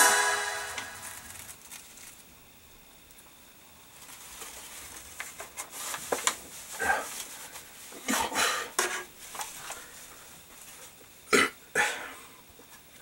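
Music fades out in the first second or so. Then a man drinks from an aluminium can of malt liquor: scattered gulping and can-handling sounds, with two louder sounds near the end.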